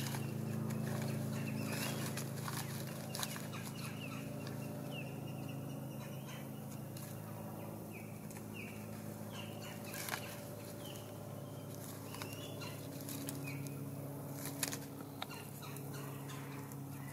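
A bird calling over and over with short downward-sliding chirps, about one a second, over a steady low hum. A few sharp clicks come through, the loudest late on.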